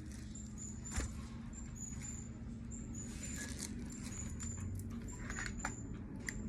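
Scattered clicks and taps of ring-light and tripod parts being handled, the sharpest about a second in, over a faint, short, high-pitched chirp that repeats every fraction of a second.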